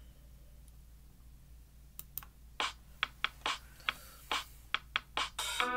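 Irregular sharp clicks of computer keys being pressed, about a dozen, starting about two seconds in. Music starts just before the end.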